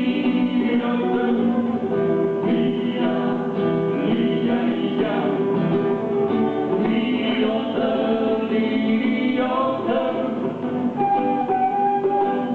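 Live acoustic band playing a song: strummed acoustic guitar, djembe hand drum and flute, with a voice singing.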